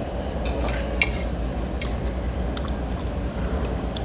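Utensils clicking lightly and irregularly against a bowl while eating, over a steady low room hum.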